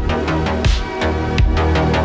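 Electronic background music with a heavy bass line and a regular beat, drum hits landing about every 0.7 seconds.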